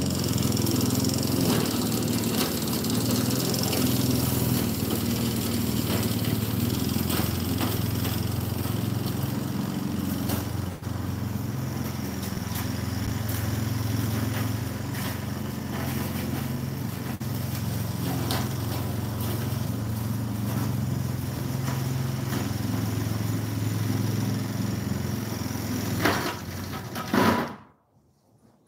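Gasoline push lawn mower engine running steadily, then shut off near the end, cutting out abruptly.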